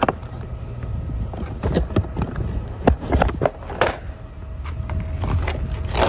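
Cardboard box being opened by hand, its tab and flaps pulled free with a series of sharp scrapes and knocks, over a steady low rumble.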